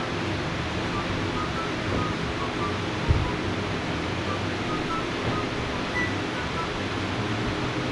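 Background music with short melodic notes over a steady noisy hiss, with a brief low thump about three seconds in.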